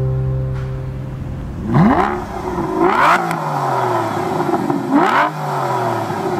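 Aston Martin V12 Vantage's V12 engine being revved through an aftermarket sport exhaust: about two seconds in, the revs rise sharply and fall back, then two more blips follow, with a crackle at each peak.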